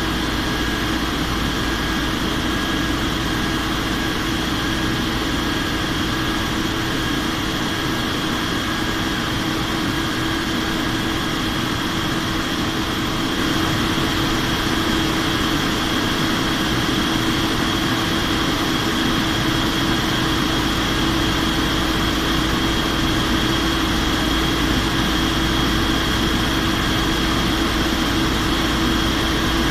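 Steady engine and airflow noise heard inside an airplane in flight during descent, with a constant low hum and a high whine; it gets slightly louder about halfway through.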